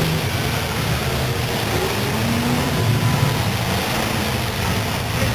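Several full-size demolition derby cars' engines running and revving together across a dirt arena, a dense, steady roar.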